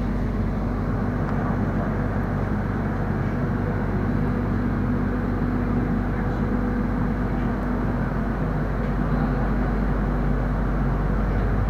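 Steady hum and rumble inside the passenger car of the Solo Ekspres diesel multiple-unit train as it slows to a stop at a station platform.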